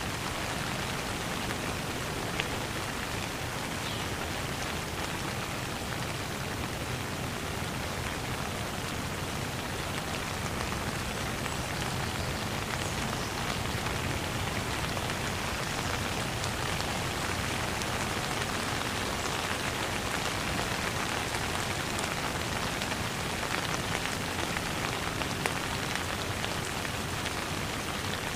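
Steady rainfall: a dense, even hiss of rain with the odd single drop tapping out above it.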